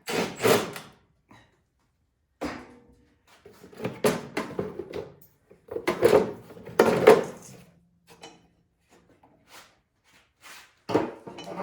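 Repeated bursts of clattering and scraping as parts of a Craftsman snowblower are handled to get at its drive belts for inspection, with five or six separate rattles and clunks and short pauses between them.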